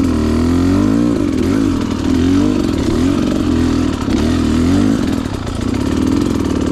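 Dirt bike engine revving up and down again and again as the throttle is worked at low speed, settling to a steadier note near the end. This is slow technical trail riding over loose rocks on a side hill, with lots of clutch control.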